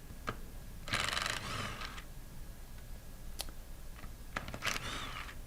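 Metal parts of an air-operated diaphragm pump being handled as its inner chamber is removed and set aside. There are two short scraping rasps, about a second in and near the end, with a few light clicks between them.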